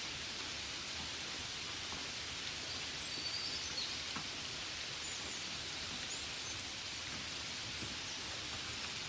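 Steady gentle rain falling as an even hiss, with scattered single drop taps. A few faint high chirps come through about three seconds in.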